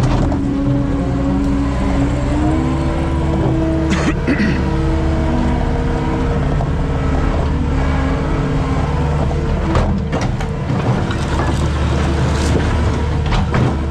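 Engine of heavy earthmoving equipment running steadily, its pitch shifting slightly with load, with a few brief clanks as debris is handled.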